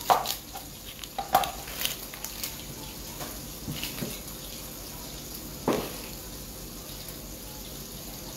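Onion being peeled and trimmed with a knife over a plastic cutting board: a scatter of sharp knocks and scrapes, the loudest near the start and again about six seconds in, over a steady hiss of liver frying on the stove.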